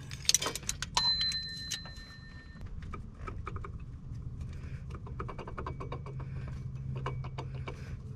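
Metal tools and engine parts clinking and knocking as a wrench and socket come off an AC compressor clutch bolt, one clink about a second in ringing on briefly. Then lighter clicks and small rattles as the clutch front plate is worked off by hand, over a steady low hum.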